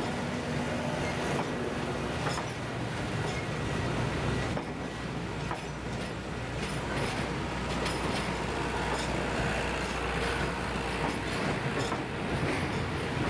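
A train running on the track: a steady rolling rumble with a few faint steady tones. A low hum comes in about four and a half seconds in and fades near the end.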